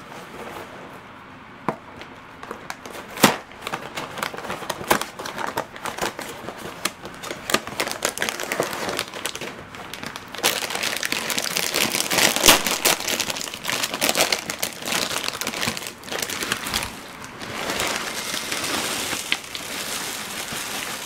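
Foil inner bag of a cereal box crinkling and crackling as it is handled and opened, then chocolate cereal balls pouring from the bag into a glass bowl near the end.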